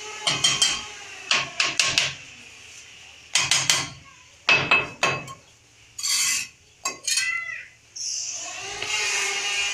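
Ceramic wall tiles being tapped into their mortar bed with a hand tool: short clusters of sharp knocks, four bursts of several taps each, setting and levelling the tiles.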